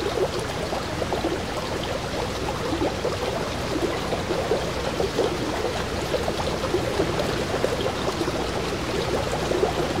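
Fast-flowing stream water rushing and splashing over rocks, a steady babbling run of water.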